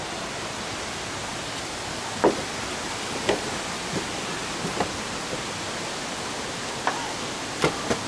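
Steady rushing of a river and its small waterfalls over rocks, with a few short sharp sounds over it, the strongest about two seconds in.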